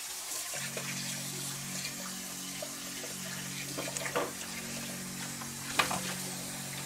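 Kitchen tap running into a sink, with a steady low hum setting in about half a second in and a few short clinks near the middle and end.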